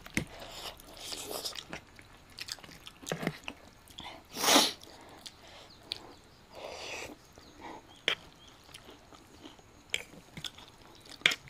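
Close-miked eating: chewing and crunching of noodles with crunchy fried soya chunks (Nutrela), with scattered short clicks. A short, loud rush of noise about four and a half seconds in.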